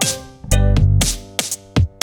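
Background electronic music: hard drum-machine hits over deep bass and pitched synth notes.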